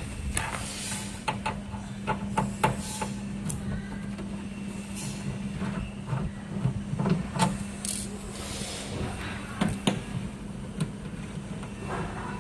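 Scattered clicks, taps and clinks of hand tools and small machine parts being handled during disassembly, over a steady low hum.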